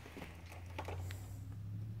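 Light rustling and scratching as a kitten bats and pounces at a string on carpet, over a low steady hum.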